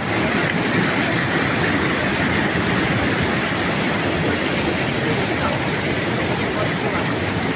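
Waterfall rushing steadily: a constant dense hiss of falling water.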